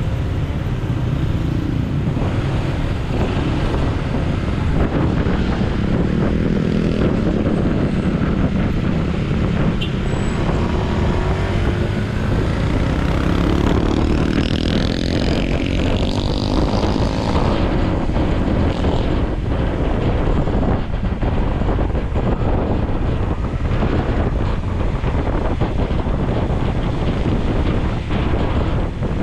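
Honda ADV160 scooter riding in traffic: a steady engine and road noise, with the engine note rising and falling through the middle stretch. Other motorcycles and cars run close by.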